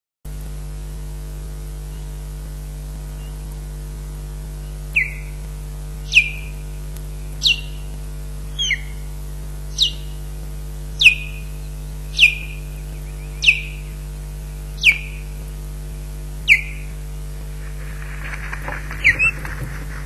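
Osprey alarm calls against an intruding osprey: a series of sharp whistles, each sliding down in pitch, starting about five seconds in and repeating about once every second and a half. Near the end the calls come quicker, with a rustle. A steady mains hum runs underneath.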